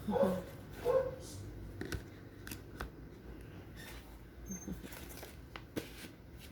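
A dog barking twice in short yips in the first second, then scattered light clicks and rustles of objects being handled.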